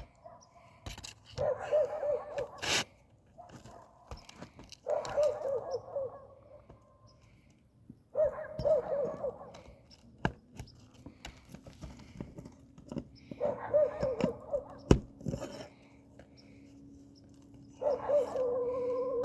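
Hand work on asphalt shingles with a shingle-removal snake tool: sharp knocks and scrapes. Five times, about every three to four seconds, there is a wavering, squealing sound lasting a second or so.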